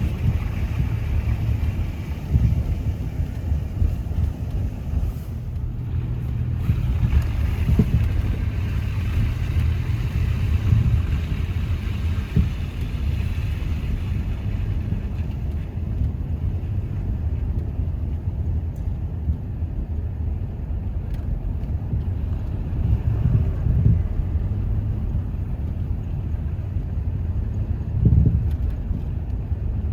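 Car driving on the road: a steady low rumble of tyres and engine, with a few brief swells.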